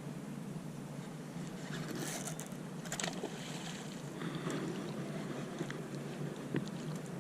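Steady rush of river water and wind around a boat, with a few brief sharp sounds, the clearest about three seconds in and another near the end.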